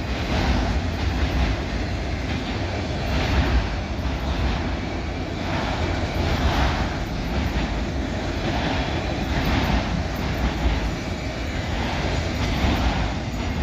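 Freight train rolling past at speed, a steady rumble of wheels on rail with intermittent clacks as the cars go by.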